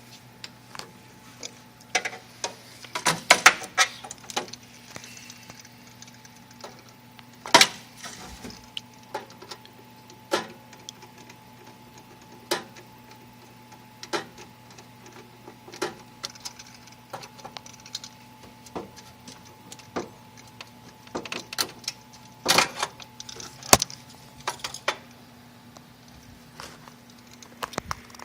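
Irregular clicks, taps and clatter of small hard parts and tools being handled, with louder clusters a few seconds in and again past the twenty-second mark, over a steady low electrical hum.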